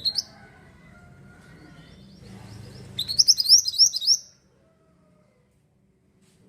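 Mantenan songbird singing: a short high chirp at the start, then about three seconds in a fast run of about seven quick rising whistled notes lasting just over a second, before it falls silent.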